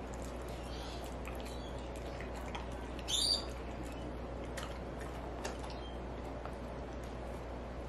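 Border collie eating wet dog food from a collapsible bowl: wet chewing and licking with small clicks against the bowl, and one short high squeak about three seconds in.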